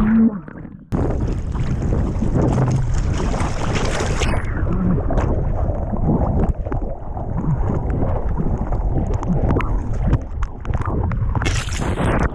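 Surf water rushing and splashing, with strong wind buffeting the camera microphone, heard from a surfer's body-mounted camera in the waves. The sound cuts out briefly just after the start.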